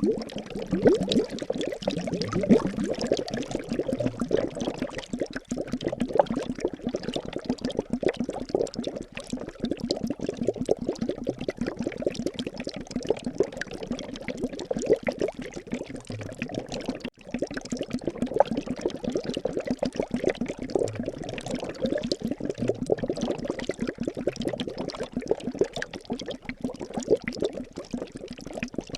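Liquid bubbling and trickling steadily, a dense run of small pops close together.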